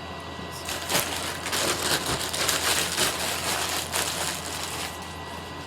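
Packaging crinkling and rustling as it is handled, with scattered sharp crackles.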